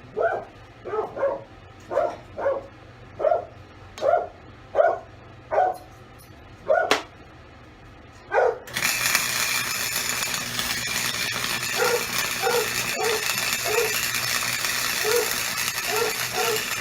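A dog barking over and over, about one bark every half second to second. About nine seconds in, a loud steady hissing noise starts and carries on, the barking still going under it, and it cuts off just before the end.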